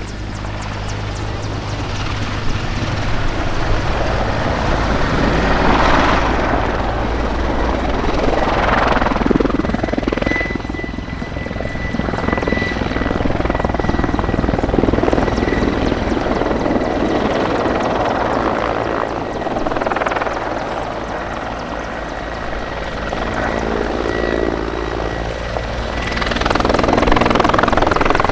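Mil Mi-24 Hind attack helicopter in flight: the rotor beat with the whistle of its twin turboshaft engines, swelling and fading as it turns and passes, loudest near the end.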